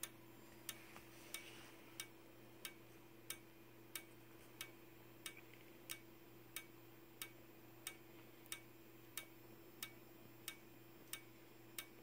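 Simplex 4903-9219 strobe flashing: one sharp tick with each flash, evenly spaced at about one every two-thirds of a second.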